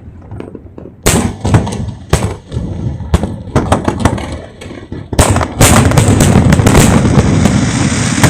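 Aerial fireworks shells bursting close by: single sharp bangs about once a second, then a dense barrage of rapid bangs and crackling from about five seconds in.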